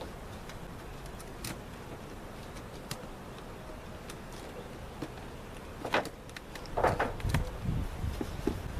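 Wooden beehive equipment being handled: a few light clicks, then a cluster of knocks and scrapes with dull thumps about six to seven and a half seconds in.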